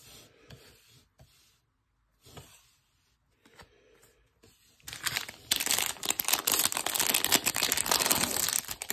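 A foil trading-card pack wrapper being torn open and crinkled by hand, a loud, dense crackling that starts about five seconds in. Before it there are only faint light taps as cards are handled on a table.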